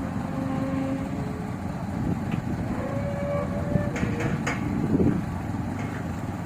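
Diesel engine of harvest machinery running steadily, with a few short held tones over it and a couple of sharp clicks about four seconds in.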